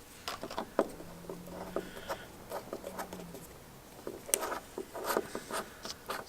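Small plastic plugs being pried out of holes in a VW Touareg's body: a series of light plastic clicks and snaps, busiest a little past four seconds in.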